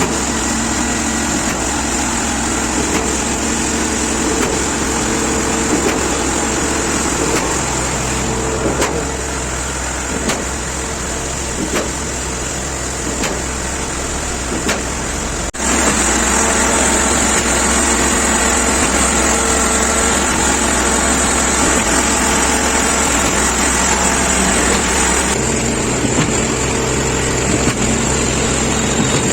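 Engine of a concrete mixer-pump machine running steadily. About halfway through the sound breaks off and resumes a little louder, with a different mix of tones.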